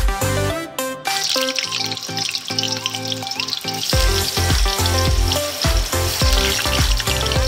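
Tofu cubes frying in hot oil in a wok: a dense sizzle starts suddenly about a second in as the first pieces go into the oil and keeps going as more are added. Background music with a steady beat plays throughout.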